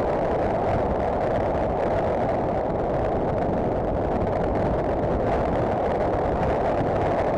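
Steady, muffled rush of wind and riding noise from a Honda CBF1000 motorcycle cruising at an even speed, picked up by an action camera mounted on the bike or rider.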